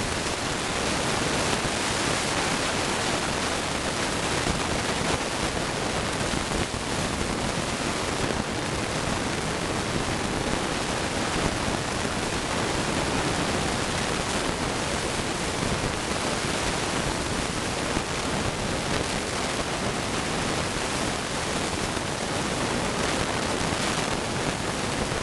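A steady, even hiss with no distinct bangs or pops.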